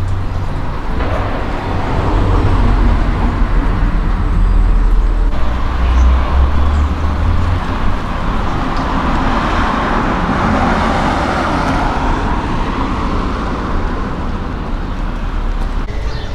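Road traffic: cars running past, a steady hum with a louder pass that swells and fades around the middle.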